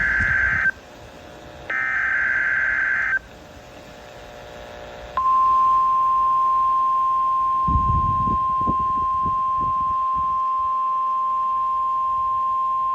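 NOAA Weather Radio Emergency Alert System signal: the end of one screechy SAME data burst and then a second full burst about a second and a half long, which encode the alert header. About five seconds in, the steady 1050 Hz warning alarm tone starts and holds, announcing that a Tornado Watch message follows. Some low rumbling noise sits underneath the tone partway through.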